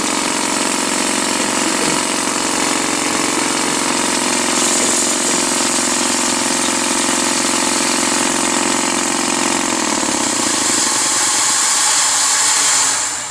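An engine running steadily, with a high hiss over its hum. About ten seconds in, its low tone drops in pitch and fades, and the whole sound cuts off sharply near the end.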